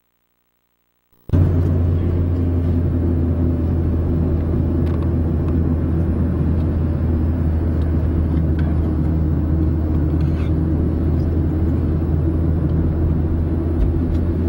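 Road noise inside a moving car: a steady low rumble of engine and tyres. It starts abruptly about a second in, after near silence.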